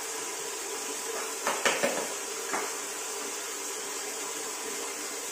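About four sharp clacks within a second, starting about a second and a half in, as a large ceramic floor tile is set down onto wet mortar and knocks against the neighbouring tiles, over a steady background hiss.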